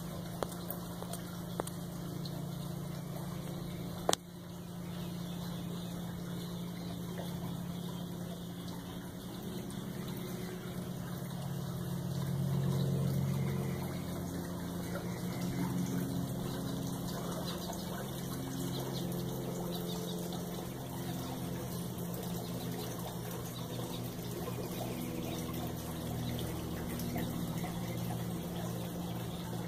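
Steady low hum of a swimming pool's filter pump running, with a few light clicks near the start and one sharp click about four seconds in.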